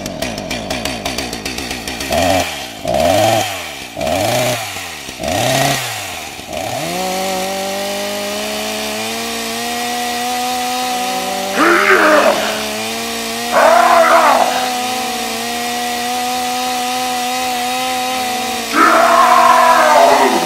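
Chainsaw engine sound effect: four short sputters that rise and fall in pitch, then it catches about seven seconds in and runs steadily, with three louder, harsher bursts over the steady running.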